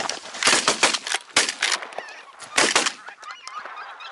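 A flock of geese flying low over decoys, honking and calling, with several loud, harsh blasts cutting across the calling, about half a second in, at about a second and a half, and again near three seconds.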